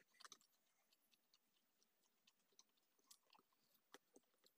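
Faint close-up chewing: soft wet mouth clicks and small crunches from a woman eating, with a few sharper clicks about three and four seconds in.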